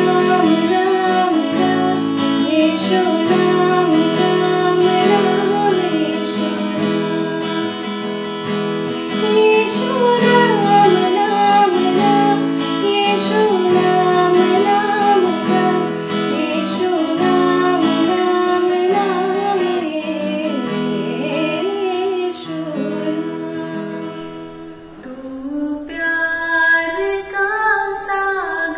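A young woman singing a Hindi Christian worship song over a strummed acoustic-guitar backing track. About 25 seconds in it cuts to another young woman singing unaccompanied.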